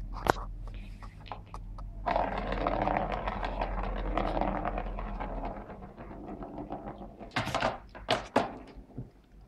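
Ball rolling around the plastic track of a circular cat scratcher toy, knocked along by a cat's paw: a sharp knock, then a few seconds of rattling rumble as it circles, and a few more sharp clicks near the end.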